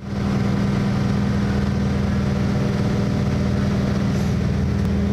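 An engine idling steadily, a constant low hum that holds one pitch throughout.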